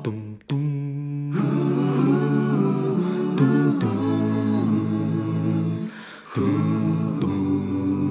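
A voice humming a wordless melody with soft backing music, a wordless passage between sung verses of a song. The melody drops out briefly about half a second in and again near six seconds in.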